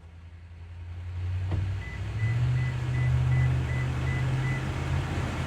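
Pickup truck's engine running, with the road and engine noise rising over the first two seconds. A sharp click comes about a second and a half in, then a vehicle warning chime beeps at one pitch about three times a second for nearly three seconds.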